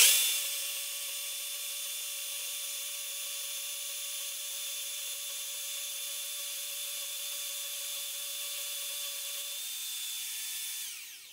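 DeWalt portable band saw cutting lengthwise through 3/4-inch square mild steel bar: a steady high whine with blade hiss. It starts abruptly, and near the end the whine falls in pitch and dies away.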